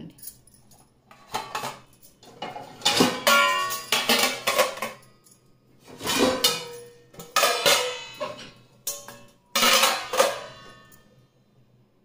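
Stainless steel plates clanking against each other as they are lifted out of a dishwasher rack: several bouts of clatter, each with a brief metallic ring.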